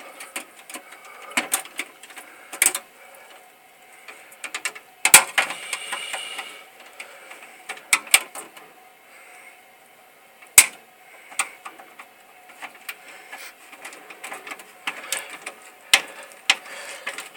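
Irregular clicks, taps and scrapes of metal on metal as a white wire is worked into a terminal hole in an electrical panel box, with a few sharper clicks standing out.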